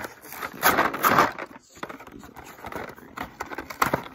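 Cardboard candy box being pried and torn open by hand. A loud rough tearing noise comes about half a second to a second and a half in, then scattered clicks and scrapes of the cardboard near the end.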